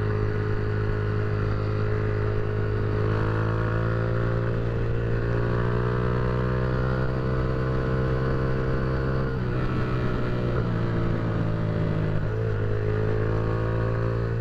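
Honda Titan 150's single-cylinder four-stroke engine running through a loud aftermarket Roncar aluminium sports exhaust with its small catalyst removed, the motorcycle under way at a fairly steady pace. The engine note drifts slowly in pitch and briefly dips twice in the second half.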